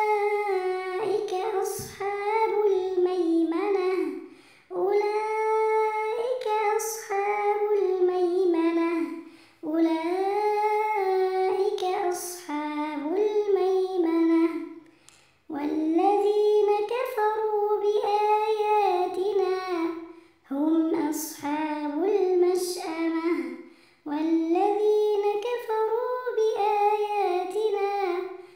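A girl's voice chanting Quranic recitation in a melodic tajweed style. It comes in about six drawn-out phrases, with short breath pauses between them.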